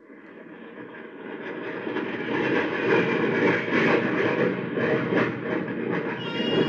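Sound effect of a jet aircraft passing low overhead: a rushing roar that swells over the first couple of seconds and then stays loud. Near the end a baby starts crying over it, woken by the plane.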